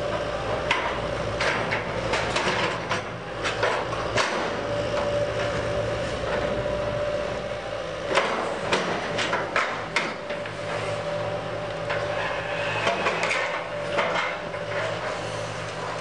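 Building demolition: a heavy machine's engine runs steadily while debris clanks, knocks and crashes as the structure is torn down, the impacts coming in clusters, several in a row at times.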